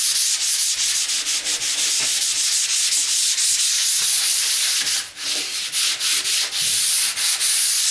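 Hand-sanding the flat wooden top of a desktop with sandpaper on a block: a steady hiss of back-and-forth strokes, with a short break about five seconds in.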